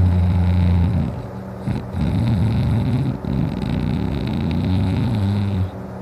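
A sleeping person's heavy snoring breath between snores: a low, steady hum for about the first second, then a softer, wavering low drone of breath.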